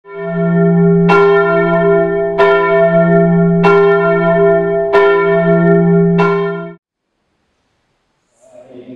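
A church bell tolling: five strokes about every second and a quarter, each ringing on into the next, then cut off abruptly.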